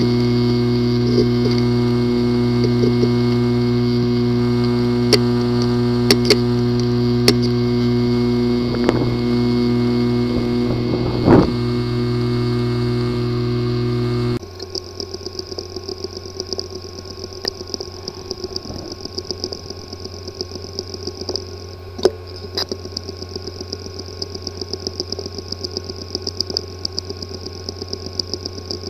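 Two recordings of failing hard drives whose disk assemblies are physically damaged. The first is a steady loud buzz with a few sharp clicks. About fourteen seconds in it cuts to a quieter drive ticking rapidly and evenly over a high whine.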